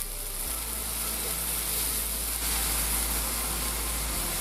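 Masala paste thinned with a little water sizzling in the pan over a high flame, a steady hiss with a constant low hum beneath it.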